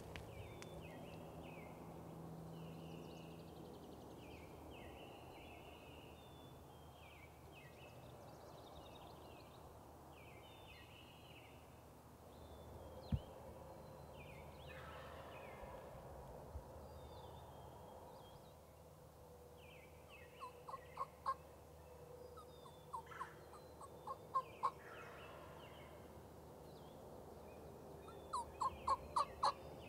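Wild turkey yelping: three runs of quick, evenly spaced notes in the second half, the last run the loudest. Small birds chirping throughout, and a single sharp click about halfway through.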